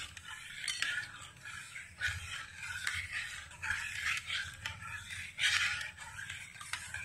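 Flat steel spatula stirring watery liquid in a stainless steel pot, with irregular metal-on-metal scrapes and swishes, over a low steady hum.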